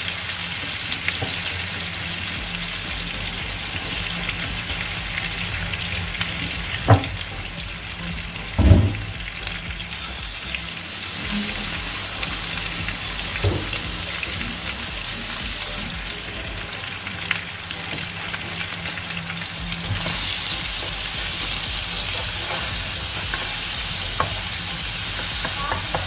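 Pounded chilli padi, onion and garlic paste frying in hot oil in a wok, a steady sizzle. Two short knocks, about seven and nine seconds in, are the loudest sounds.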